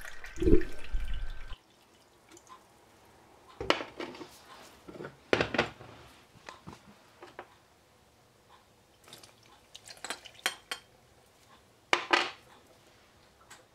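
Apple vinegar pouring into a small glass tea glass for about a second and a half, followed by a few scattered clinks and knocks of glassware.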